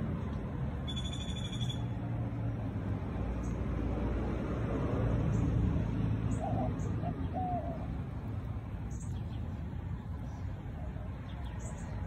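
Outdoor background noise: a steady low rumble, with a short high-pitched bird call about a second in and a few brief, lower bird notes around the middle.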